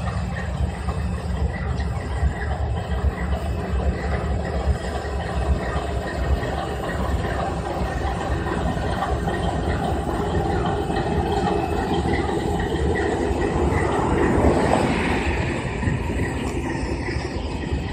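Norfolk Southern freight train's diesel locomotives passing close by, their engines running with a steady low rumble that swells to its loudest about fourteen seconds in as a unit goes past.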